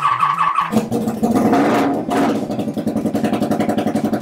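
Honda motorcycle engine cranking on the electric starter, then catching about a second in and running, with one rev rising and falling, then running on with a steady pulse. It is running on ether alone, because no fuel is reaching the carburettor.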